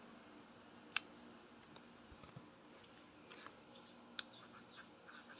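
Near silence, broken by a few faint handling clicks and ticks. The sharpest come about a second in and a little after four seconds in.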